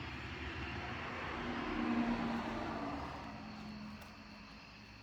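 A passing vehicle's engine: a steady hum that swells to its loudest about two seconds in, then drops slightly in pitch and fades away.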